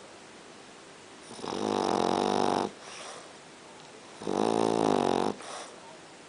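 French bulldog snoring: two long, rattling snores about three seconds apart, each lasting over a second.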